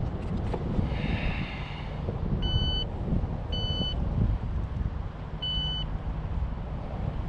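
Wind buffeting the microphone, with four short, identical electronic beeps spaced one to two seconds apart from a device on the kayak.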